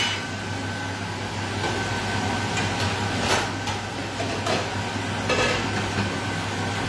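Steady low kitchen hum, with a few light clinks and knocks of dishes being handled at the counter about three, four and a half and five and a half seconds in.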